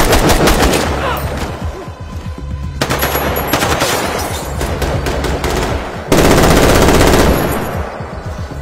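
Rapid bursts of automatic rifle fire in a gunfight, shot after shot echoing off buildings, with the loudest, most continuous burst about six seconds in, easing off near the end.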